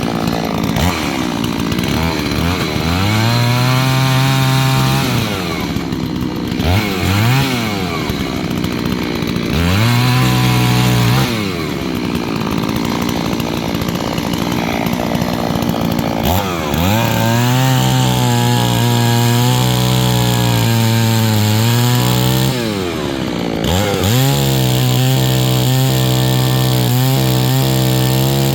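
Two-stroke chainsaw being run in, brought up from idle to a steady part throttle and held for a few seconds, then let back down, about five times. It is new and still in break-in, kept to about half throttle.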